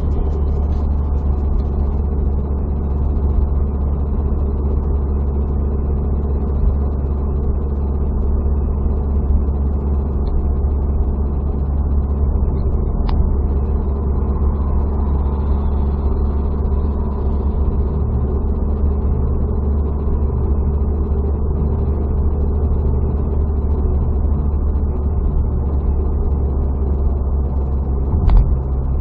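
Steady low rumble of engine and tyre noise inside a car cruising at about 75 km/h, with a few faint clicks near the end.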